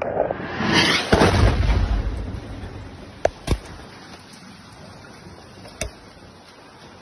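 An airstrike explosion: a heavy, deep blast about a second in whose rumble fades over the next two seconds, followed by a few short, sharp cracks.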